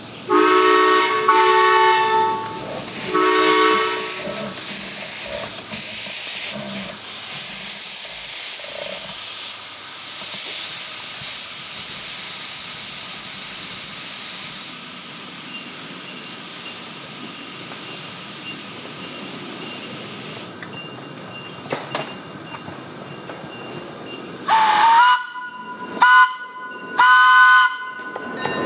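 Steam locomotive whistle blowing two long blasts, a chord of several tones, followed by a steady hiss of escaping steam that weakens and stops about twenty seconds in. Near the end the whistle gives three short toots, the first sliding up into pitch.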